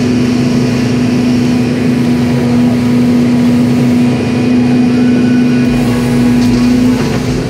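Volvo EC220E excavator's diesel engine and hydraulics running steadily under load while the bucket digs, a continuous drone that eases slightly near the end.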